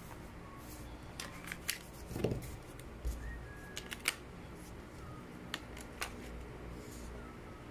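Hard plastic clicks and knocks as AA batteries are handled and fitted into the battery compartment in a plastic toy gun's grip: half a dozen separate sharp clicks, the loudest around two and four seconds in.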